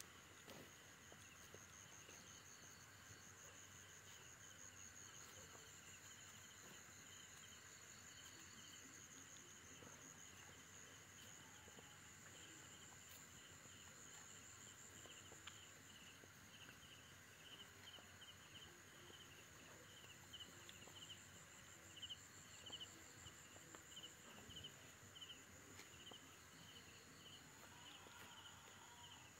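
Faint chorus of night insects: a steady high trill with a lower, evenly pulsing chirp under it.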